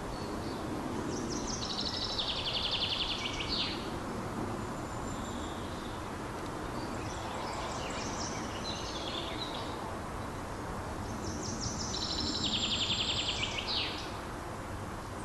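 Woodland birdsong over a steady background hiss. A songbird gives a long, fast trilled song ending in a falling note, about two and a half seconds long, once near the start and again near the end, with scattered shorter chirps in between.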